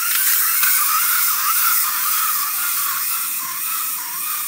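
Small battery motors inside toy Ramone cars whirring steadily, with a slightly wavering whine.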